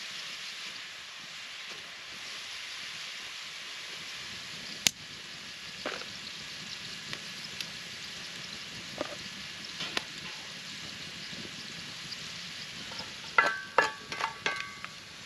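Food sizzling in a cast iron skillet over a campfire, a steady hiss broken by a few sharp pops. Near the end comes a quick run of loud, ringing metal clanks as the skillet is lifted off the grill grate and handled.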